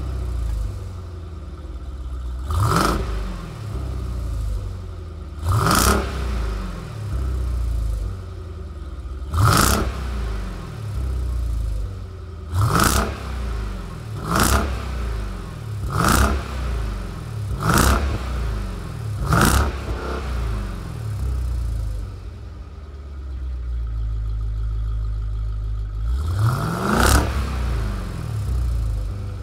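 Supercharged 6.2-litre Hemi V8 of a Jeep Grand Cherokee Trackhawk, heard through its exhaust, idling and blipped: eight short, sharp revs a couple of seconds apart, then a longer rev near the end after a spell of idle.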